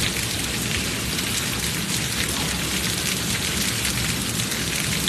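Heavy rain pouring steadily, a dense, even hiss of falling drops.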